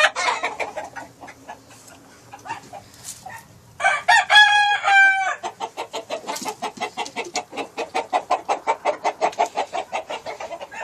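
A rooster crows once, about four seconds in, in a loud several-part cock-a-doodle-doo. After it comes a fast, even run of short clicks, several a second, that continues to the end.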